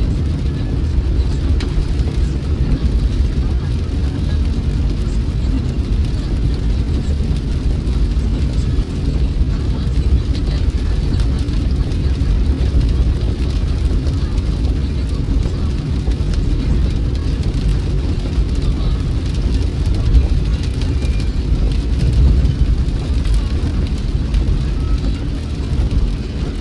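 A car driving steadily: continuous low road and engine rumble, with rain adding a faint hiss above it.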